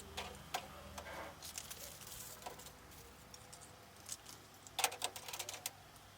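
Small clicks and knocks of household items being handled and set down while sorting, with a quick cluster of clatter about five seconds in, over a faint low hum.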